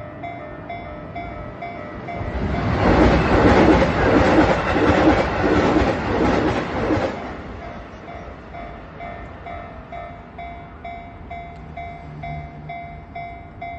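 Japanese level-crossing warning bell ringing steadily in a fast repeating pulse while a JR train passes through the crossing, loudest from about two and a half to seven and a half seconds in, its wheels clattering rhythmically over the rail joints.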